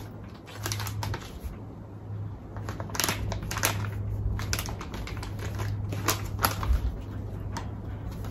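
Plastic dog-food pouch crinkling as it is handled: a run of sharp, irregular crackles, most of them from about three seconds in. A steady low hum underlies them.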